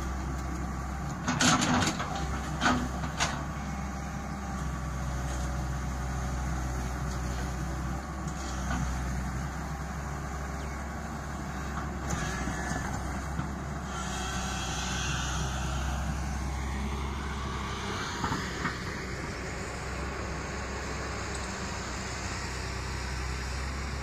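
Tata Hitachi tracked excavator's diesel engine running steadily while it digs, with a few sharp knocks between one and three seconds in and a sliding change in its working tone about two-thirds of the way through.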